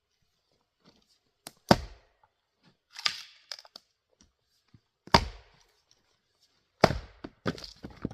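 A 3½-pound Craftsman single-bit axe chopping and splitting rounds of grand fir firewood: three sharp chops about a second and a half in, about five seconds in and near the end, with the crack and clatter of split wood between them.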